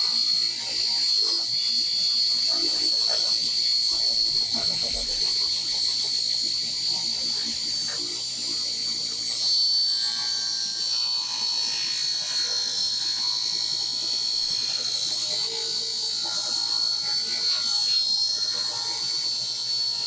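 Craftsman 113.226680 table saw with an 80-tooth plywood blade ripping a long board: a steady high whine from the blade and motor under load, with cutting noise, its pitch wavering a little later on. The saw is under-powered for the cut and the board is pinching the blade.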